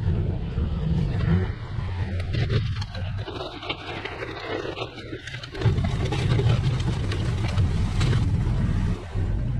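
Engine of an earth-moving machine pushing dirt. It runs steadily, eases off about two seconds in, and picks back up sharply about five and a half seconds in, with scattered clicks and knocks throughout.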